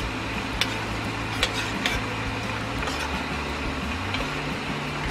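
Metal spoon stirring cornstarch slurry in a small stainless-steel measuring cup, with a few light clicks of the spoon against the cup's side, over a steady sizzle from the pan of orange sauce on the stove.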